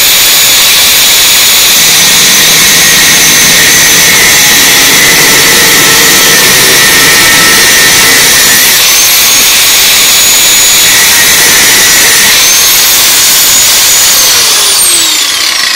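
Angle grinder with a cutting disc cutting into a steel motorcycle exhaust tube, running at a loud high whine that dips briefly under load twice. Near the end it is switched off and winds down, its pitch falling.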